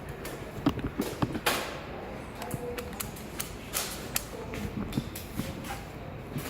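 Irregular sharp clicks and taps, mixed with a few brief rustling swishes.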